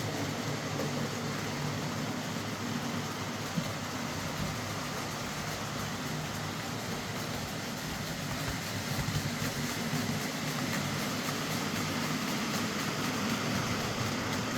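Bachmann Class 47 OO gauge model locomotive running on the track after servicing: a steady motor whirr with wheels rolling on the rails.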